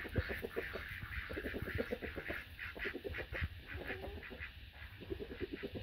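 Farm poultry calling in quick runs of short, repeated notes.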